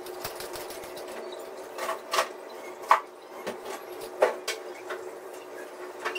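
Kitchen dishes and utensils being handled, giving about half a dozen sharp knocks and clinks over a steady hum.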